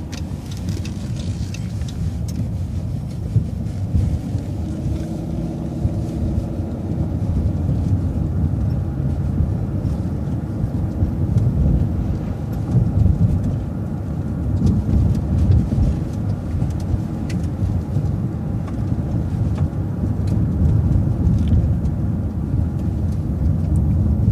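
City transit bus engine and road rumble heard from inside the bus as it makes a right turn and drives on. The engine note rises about four seconds in as the bus accelerates, then holds steady.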